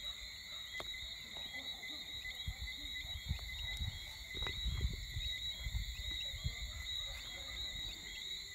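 Evening insect chorus: steady high-pitched chirring in several layers, with a small chirp repeating about twice a second. Low rumbles and soft thumps from wind or the phone being handled come and go, loudest in the middle.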